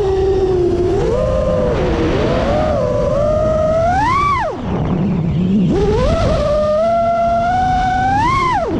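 Brushless motors of a TBS Source One v4 FPV quadcopter whining, the pitch rising and falling with the throttle: two sharp climbs in pitch, about four and eight seconds in, each cut off suddenly to a low whine as the throttle drops. Steady wind rumble on the onboard microphone.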